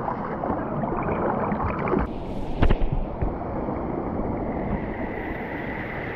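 Water splashing and churning in a waterfall pool, with a sharp knock or splash about two and a half seconds in. After that the sound turns duller and steady.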